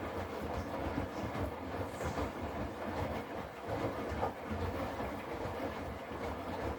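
Hotpoint Active Care washing machine running, its drum turning with a steady, dense rumble.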